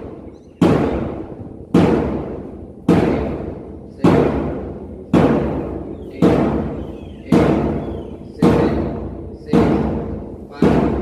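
A drum struck once about every second, ten even beats, each ringing out and fading before the next: a steady beat keeping time for a mass PT exercise routine.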